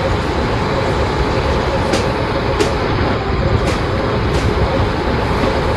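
An electric train running past: a steady, loud rumble with a few faint sharp clicks.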